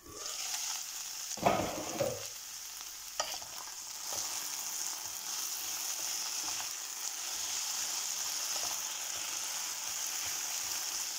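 Julienned potatoes sizzling steadily in hot oil in a frying pan, stirred with a wooden spatula. A louder knock about a second and a half in, and a few short scrapes as the spatula moves.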